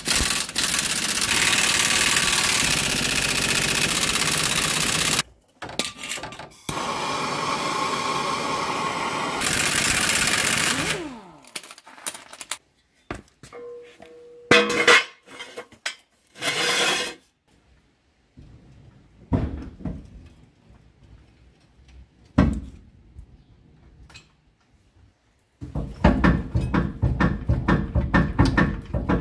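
Pneumatic impact wrench running in long bursts on rusted nuts at the rear axle's leaf-spring mount. Scattered metal clanks and knocks follow, and near the end comes another stretch of fast rattling hammering.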